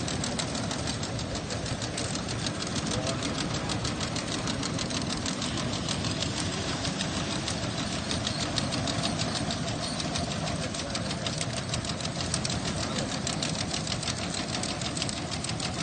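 Beach-cleaning robot's motor running steadily with a fast, even mechanical clatter.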